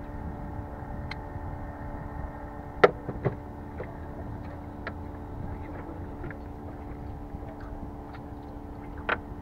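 Steady low engine hum over wind and water noise, with a few sharp knocks on the small aluminium boat: two close together about three seconds in, the loudest, and another near the end.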